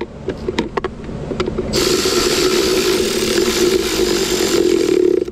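Cordless power tool running a socket on a 10 mm bolt in the rear of a centre console compartment. A few short clicks come in the first second or so, then the motor runs steadily for about three and a half seconds.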